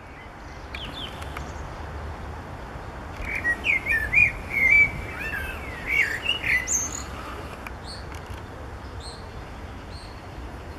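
Male common blackbird singing one phrase of fluty, warbling notes, starting about three seconds in and ending in a high twittering flourish. A few faint high chirps follow, over a low steady background rumble.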